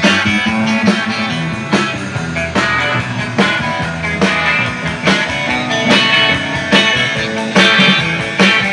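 Live band playing an instrumental passage: electric guitars over bass, with a steady beat.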